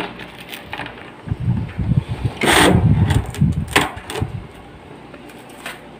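Plastic cling wrap being pulled from its dispenser box and stretched over a glass baking dish: crinkling plastic with low rumbling handling noise, starting about a second in and dying down after about four seconds.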